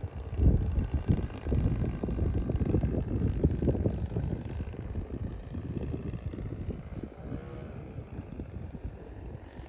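Wind buffeting the microphone in gusts, strongest in the first half, over the faint steady drone of a radio-controlled model Cessna 182 Skylane's propeller in flight.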